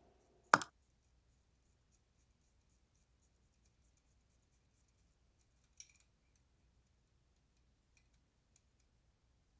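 A single sharp click about half a second in, then a faint click near the middle; otherwise near silence.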